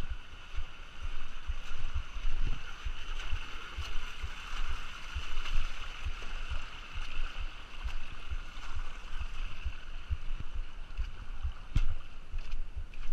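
Water lapping and slapping against a kayak's hull, heard as irregular dull low thumps over a steady hiss, with one sharp click about three-quarters of the way through.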